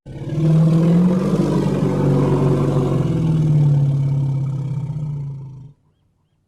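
Elephant giving one long, low, rough call that cuts off suddenly after nearly six seconds.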